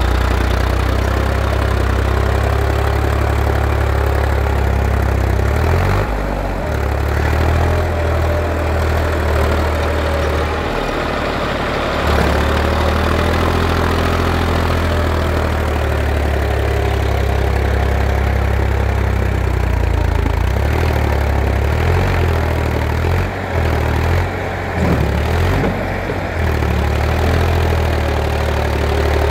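Farm tractor's diesel engine running steadily with a deep, low drone as it tows a loaded transformer trailer through mud, its note dipping briefly a few times.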